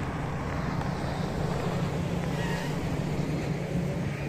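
A full-size cargo van driving slowly past, its engine giving a steady low hum, with wind buffeting the microphone.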